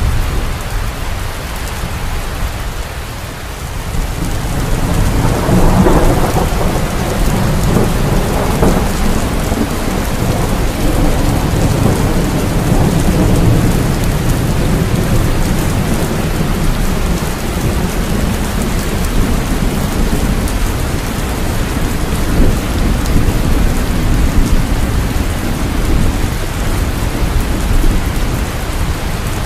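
Steady rain with a low rolling rumble of thunder that dips early, then swells about five seconds in and keeps rolling.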